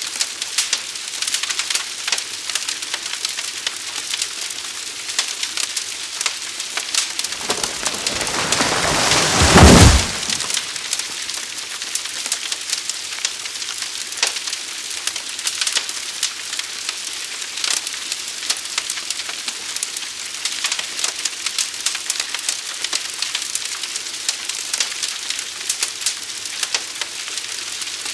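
Forest fire burning: a steady hiss with dense, irregular crackling. About a quarter of the way in, a rushing sound swells for a couple of seconds, becomes the loudest thing, then cuts off suddenly.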